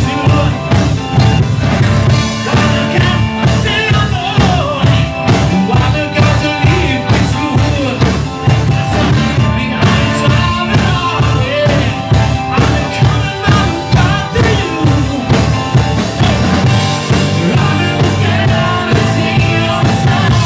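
Live rock band playing loud, with distorted electric guitars, bass guitar, keyboards and a steady drum beat under a male lead vocal.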